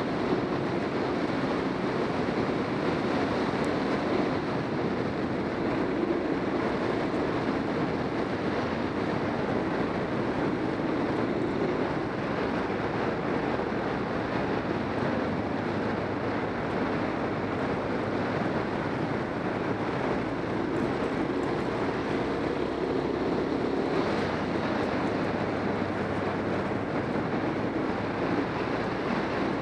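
Motorcycle engine running steadily while under way, mixed with wind rushing over the microphone.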